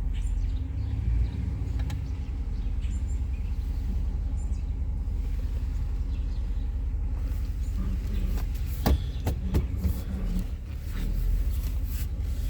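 Steady low rumble of a car's engine and road noise heard from inside the cabin while driving, with a few brief clicks about nine seconds in.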